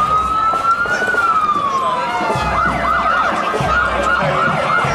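Emergency-vehicle siren: a slow wail that rises and then falls, then switches to a fast yelp of about three rapid up-and-down sweeps a second.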